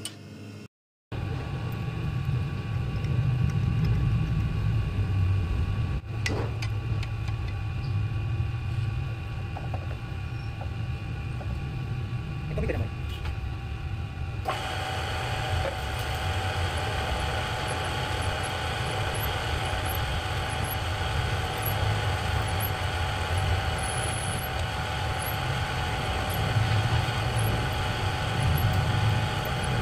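Electric drill running steadily, its bit boring into an aluminium engine case to drill out a broken bolt. About halfway through, the sound turns brighter, with a steady whine over the low motor hum.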